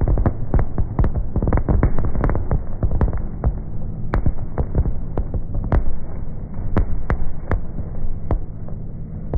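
Aerial fireworks going off in quick succession: a dense low rumble of booms with many sharp cracks over it, the rumble easing slightly in the second half.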